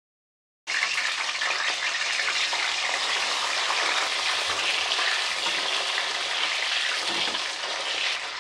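Small slit brinjals sizzling steadily as they fry in hot oil in a kadai; the sizzle starts abruptly about a second in.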